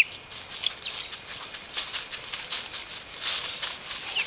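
Baby chicks peeping, each peep a short high whistle that falls in pitch. Only one faint peep comes in, a little under a second in, over on-and-off rustling noise.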